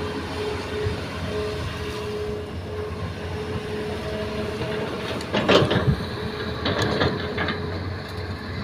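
Hitachi hydraulic excavator's diesel engine running steadily, with a hydraulic whine that comes and goes as the arm swings over the truck. About five seconds in, a bucketload of soil and rock is dumped into the steel bed of a dump truck, a clattering rush in two bursts that are the loudest sounds here.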